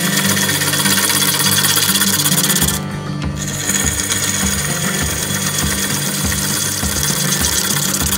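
Wood lathe spinning a large green birch blank while a gouge cuts it: a steady motor hum under a rough, scraping hiss of the cut as wet shavings spray off. The cutting hiss drops out for a moment about three seconds in, then resumes.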